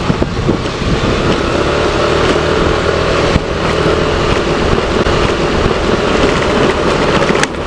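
Steady vehicle noise while riding in road traffic: an engine running under an even rushing haze, with no sharp changes.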